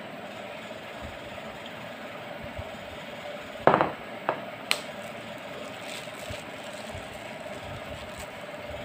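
Glass soy sauce bottle set down on a countertop with one sharp knock a little under four seconds in, followed by two lighter clicks, over a steady background hum.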